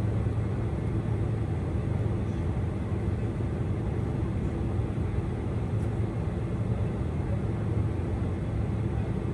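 Steady drone inside the cabin of a Boeing 747-400 airliner, its engines running, with a constant low hum.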